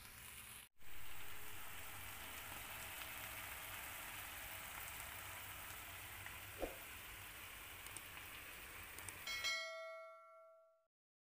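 Shimeji mushrooms and bell peppers simmering in oyster-sauce liquid in a frying pan, a steady sizzle that starts after a brief cut in the sound just under a second in. Near the end a short bell-like chime rings and fades: the sound effect of an animated subscribe button.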